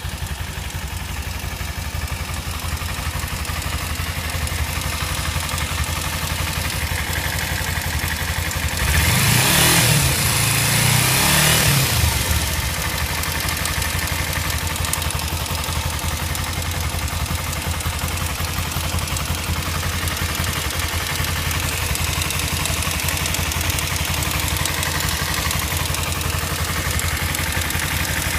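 Kawasaki Ninja motorcycle engine idling with a ticking noise, rising in a brief rev about nine seconds in that lasts about three seconds before it settles back to idle.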